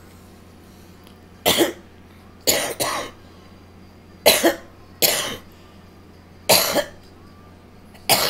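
A person coughing repeatedly: seven short coughs, some single and some in quick pairs, about a second apart.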